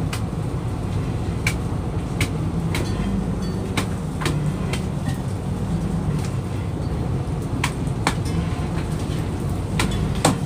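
Fishing boat's engine and net-hauling machinery running with a steady low drone, with irregular sharp clacks and knocks about once a second and a quick cluster of them near the end.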